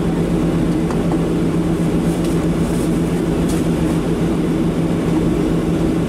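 Steady cabin drone of a Boeing 737-700 on the ground, its CFM56-7B engines running at idle: an even hum with a low, unchanging tone.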